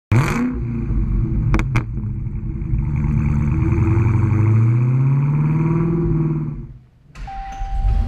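Dodge Challenger SRT Hellcat's supercharged 6.2-litre V8 starting with a loud flare, two sharp clicks, then a slow rising rev that fades out. Near the end it is heard idling from inside the cabin, with a steady electronic chime tone repeating.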